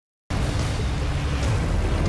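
Fast-flowing floodwater rushing in a dense, steady roar heavy in the low end, cutting in suddenly after a moment of silence.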